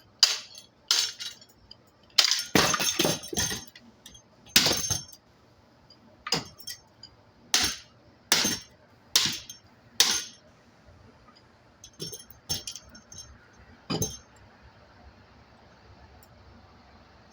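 Pieces of a smashed ceiling fan clinking and clattering as they are handled: a run of sharp clinks about one a second, with a longer clatter about two seconds in, stopping about fourteen seconds in.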